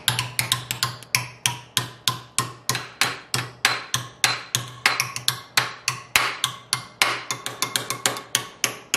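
Hammer tapping the edge of a thin sheet-steel patch clamped over angle iron, folding it into a bend bit by bit with light, quick, even taps, about three or four a second. Each tap gives a short metallic ring.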